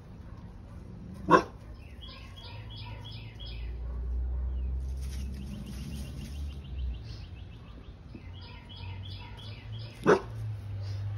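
A pit bull barks twice, one short sharp bark about a second in and another near the end. Between them come quick runs of high, repeated bird chirps.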